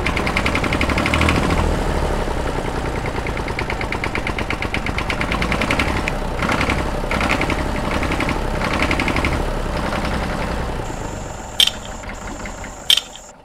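Small engine of a homemade miniature tractor running with a fast, even popping beat. Two sharp clicks come near the end, and then it cuts off.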